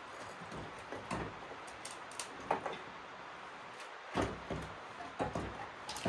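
Irregular clunks, knocks and scrapes of a Polaris Sportsman 570 ATV engine being worked loose and lifted out of its frame after its mounts are unbolted.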